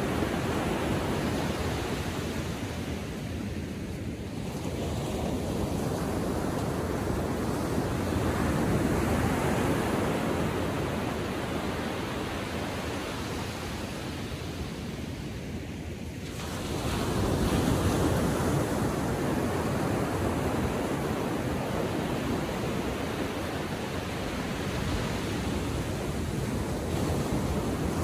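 Atlantic Ocean surf breaking and washing up the beach, swelling and ebbing wave by wave, with quieter lulls and a louder wave surging in just past the middle.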